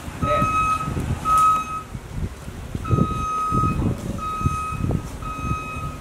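A truck's reversing beeper: a steady high beep repeating roughly once a second, over irregular low rumbling noise.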